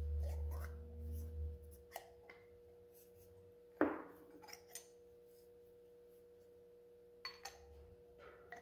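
Small metal brake master cylinder parts clinking and tapping as they are handled during reassembly, a few scattered light clicks with one sharper ringing clink about four seconds in. A faint steady hum runs underneath.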